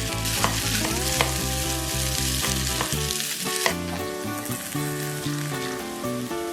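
Food frying in hot oil in a pan, a crackling sizzle with stirring. The sizzle drops away about halfway through, under steady background music.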